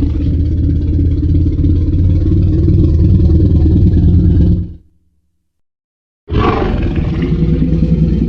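Tyrannosaurus rex roar sound effect from the Jurassic Park films: a long, low, rumbling roar that fades out a little before halfway through. After a short silence, a second roar starts abruptly.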